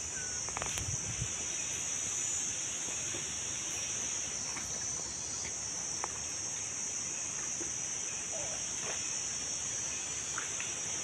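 A steady high-pitched drone of insects, crickets or cicadas, over the even hiss of a stream, with a few faint small splashes and ticks as a wet fishing net and fish are handled in the water.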